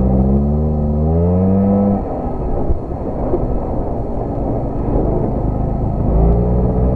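ATV engine under throttle, its pitch rising for about two seconds, then dropping away as the throttle comes off. A rough rumble from riding the dirt trail follows, and the engine revs up again near the end.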